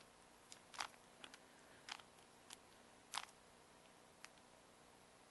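Rubik's Cube layers being twisted by hand: a run of short, irregular plastic clicks and clacks, the loudest about a second in and again about three seconds in, stopping after about four seconds.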